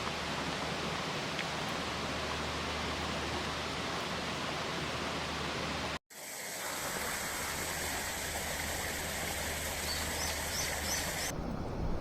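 Steady outdoor rushing noise, like flowing water or wind. It breaks off abruptly about halfway through and a similar steady noise follows, with a few faint high chirps near the end.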